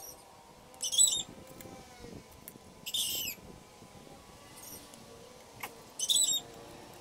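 A bird chirping: three short, high-pitched calls spaced a couple of seconds apart, with a faint click just before the last one.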